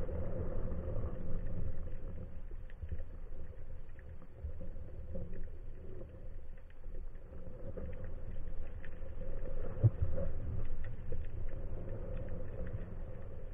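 Underwater ambience picked up through a camera housing on a speargun: a continuous low rumble of water moving against the housing, with a faint steady hum and scattered faint clicks and crackles throughout.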